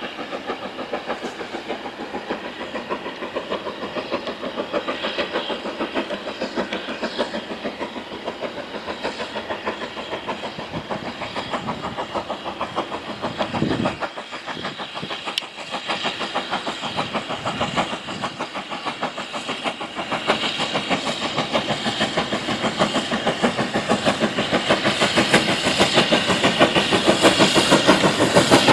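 Maunsell Q class 0-6-0 steam locomotive No. 30541 working a passenger train, its exhaust beating in a quick, steady rhythm. The beats grow louder over the last third as the engine approaches.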